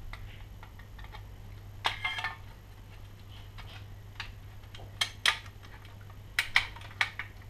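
A few separate sharp clicks and taps of the wires and terminals of a wall thermostat being handled as its cables are disconnected, over a low steady hum.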